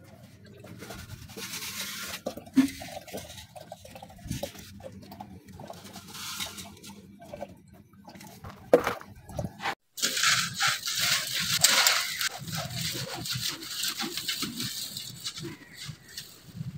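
Scattered rustling and a few knocks of handling, then, after an abrupt cut about ten seconds in, a dense gritty crunching as hands crumble a lump of dry red dirt, with grains trickling down.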